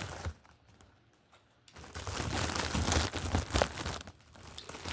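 Plastic packaging crinkling and rustling as it is handled, stopping for about a second and a half just after the start, then rustling again.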